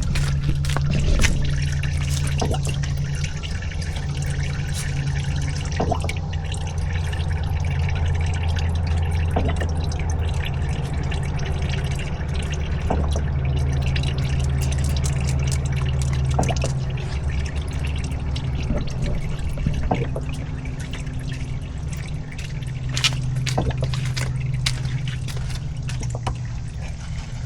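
Old engine oil draining from the oil pan of a 1987 John Deere 855 compact tractor into a drain pan: a steady pouring trickle with scattered drips and small clicks, over a steady low hum.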